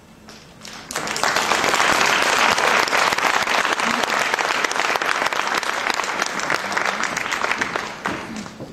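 Audience applauding: clapping starts about a second in, holds steady and loud, and dies away near the end.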